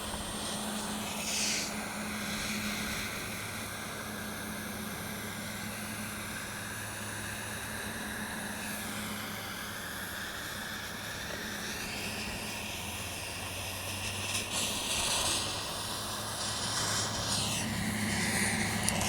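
Angled butane jet lighter burning with a steady hissing flame as it cuts and melts a plastic cup.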